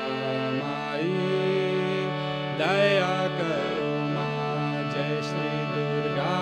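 Kirtan music: a steady drone under a melody line that slides up and down in pitch, swelling loudest about two and a half to three seconds in.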